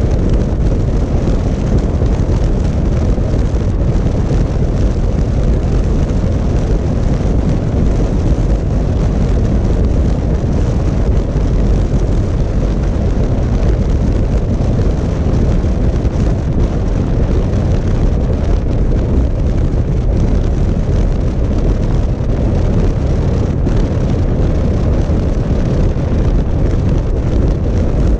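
Motorcycle riding steadily at speed: a continuous rush of wind over the camera microphone with the bike's engine drone underneath, heaviest in the low end and with no changes in pace.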